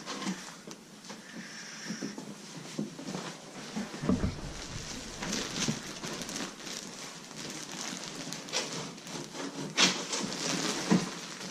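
Cardboard boxes and packaging being handled and opened: irregular rustling, scraping and light knocks, with a heavier thump about four seconds in.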